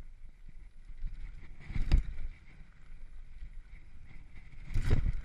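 Mountain bike rolling fast over a dirt trail: a steady rumble and rattle of the bike with wind buffeting the microphone, and two heavy thumps, one about two seconds in and one near the end, as it jolts over bumps.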